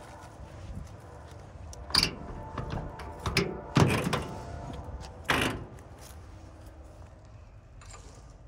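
Rusty steel door of an old GMC truck being handled: a few metal clunks and knocks, the loudest and deepest about four seconds in.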